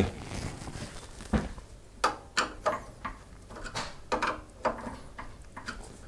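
Screwdriver tightening the screws that hold a graphics card's bracket to a PC case: a few quiet, scattered clicks and scrapes.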